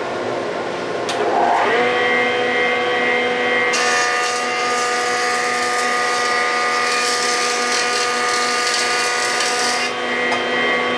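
Benchtop jointer running: the motor's whine rises over the first two seconds and then holds steady. From about four seconds in to about ten, the cutterhead knives plane the edge of a board with a loud hissing cut, then the machine runs on without load.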